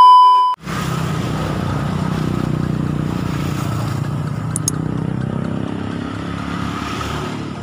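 A loud test-tone beep with static, the sound of a glitchy TV colour-bar transition, cuts off after about half a second. A steady low rumble follows, with two quick clicks about four and a half seconds in.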